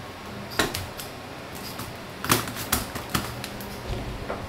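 Sharp, irregular wooden knocks and taps, about six in a few seconds, loudest a little over two seconds in, as wooden battens and a plywood panel are handled and fitted against a timber furniture frame.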